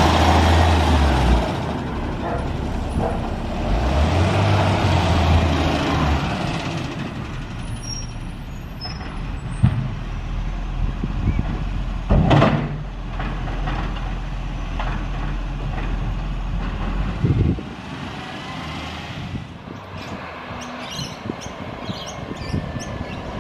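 Diesel engine of a side-loader garbage truck running as it pulls away, loudest in the first few seconds. A short, sharp air-brake hiss comes about twelve seconds in. Later the truck is heard more faintly from further off.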